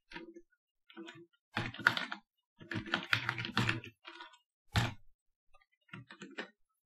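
Typing on a computer keyboard in short bursts of keystrokes with pauses between them; one louder click comes about five seconds in.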